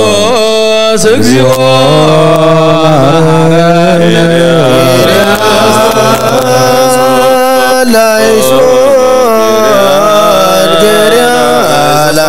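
Ethiopian Orthodox priests' liturgical chant: a loud, continuous melismatic vocal line with long held notes and wavering ornaments.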